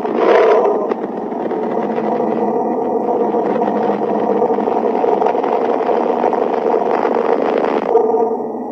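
Steady, rumbling space-sound drone of the kind presented as a planet's 'sound', made from spacecraft recordings turned into audio. It is a dense hiss-and-rumble with faint held tones, and its character shifts slightly about a second in and again near the end.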